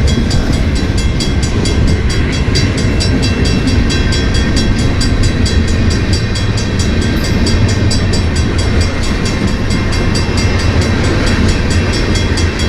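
Freight train rolling by: a heavy, steady rumble of the railcars, with a fast, even clicking of the wheels on the rail.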